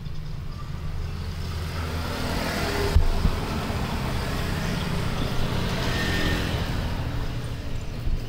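A motor vehicle's engine passing by: a low hum that grows louder over the first few seconds and then fades, with a single short knock about three seconds in.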